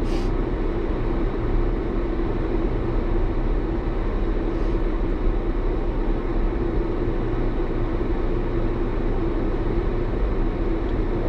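Steady engine and road hum heard inside a vehicle's cab while it drives slowly, with a constant droning tone and a low rumble.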